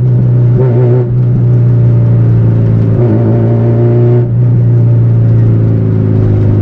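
Honda Civic EG's SOHC VTEC engine and exhaust running loudly under way, heard from inside the cabin, with an exhaust note likened to a boxer engine. The steady drone dips briefly about one second and again about four seconds in.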